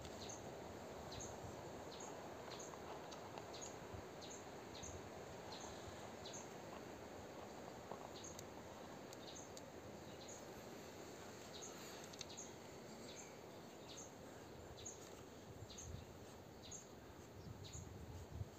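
Quiet outdoor ambience with a short, high chirp repeating steadily, a little more than once a second, and a few soft low knocks near the end.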